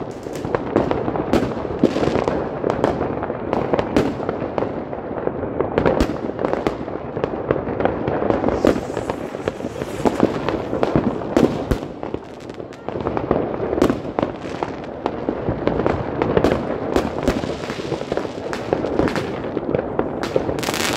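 Fireworks rockets going off all around: a dense, nearly unbroken run of sharp bangs and crackles, easing briefly about twelve seconds in.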